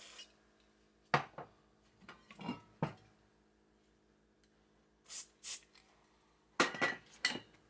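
Metal parts and tools being handled and set down on a workbench: a few separate clinks and knocks, in clusters about a second in, two to three seconds in, about five seconds in and near the end.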